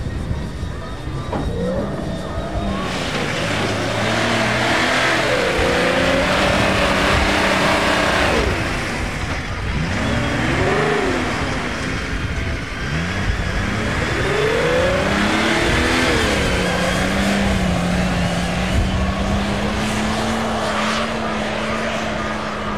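Off-road race vehicles' engines revving hard, the pitch climbing and dropping again and again as they accelerate and lift off, with dirt and tyre noise underneath. Near the end one engine holds a fairly steady pitch.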